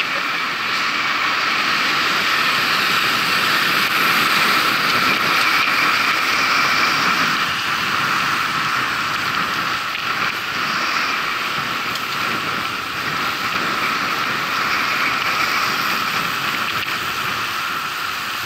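A steady rushing noise of travel, even and unbroken, with no clear engine note or single events in it.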